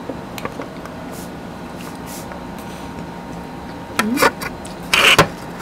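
Metal spoon and fork clinking and scraping on ceramic plates and a glass bowl, with a few light clicks and a louder short scrape about five seconds in, over a steady background hum.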